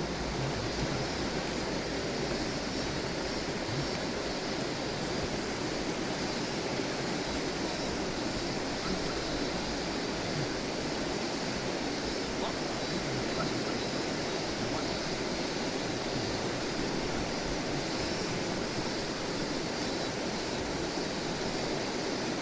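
Steady, even rushing noise at the fishing spot, of the kind made by moving water or wind, with no distinct events.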